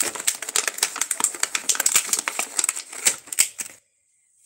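Plastic blister packaging being handled and opened: a rapid, irregular run of sharp crackles and clicks that cuts off abruptly near the end.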